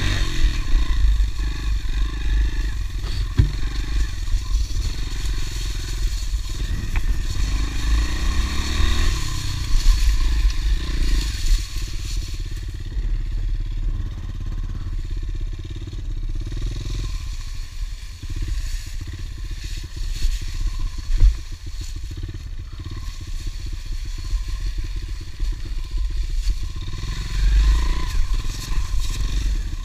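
Honda CRF110F pit bike's small single-cylinder four-stroke engine running under way, its revs rising and falling with the throttle. For a few seconds past the middle the revs drop low and the firing pulses slow. A heavy low rumble runs underneath.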